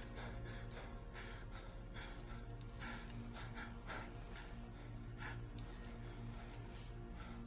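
A man breathing in short, uneven breaths and gasps, faint, over a steady low hum.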